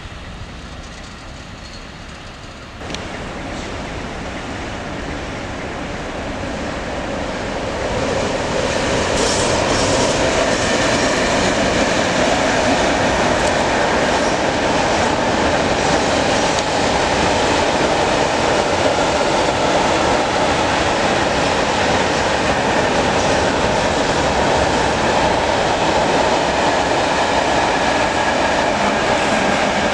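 Diesel-hauled freight train passing close: the locomotive goes by and a long string of open freight wagons follows, wheels clattering over the rails. The sound builds over the first eight seconds or so, then stays loud and steady.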